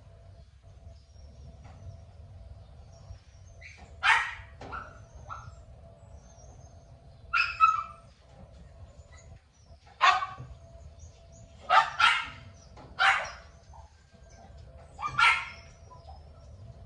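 A dog barking in short, separate barks, about seven in all and spaced irregularly, two of them in quick succession about twelve seconds in.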